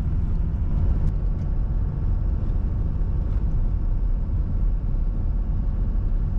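A vehicle driving on a gravel road, heard from inside the cab: a steady low rumble of engine and tyres.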